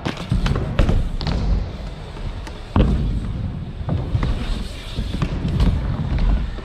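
BMX and scooter wheels rolling over skatepark ramps with a low rumble, broken by several sharp knocks of wheels and landings hitting the ramps, the loudest about three seconds in.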